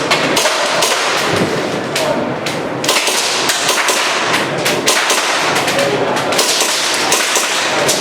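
Gas blowback airsoft pistol firing a rapid, irregular string of shots during a practical shooting stage run.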